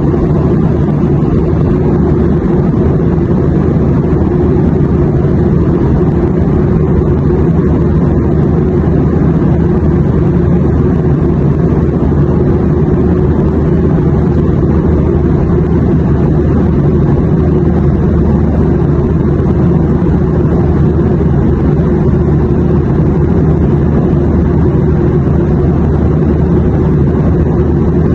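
Steady, even rumble of an airliner cabin in flight, engine and airflow noise heavy in the low end with no changes.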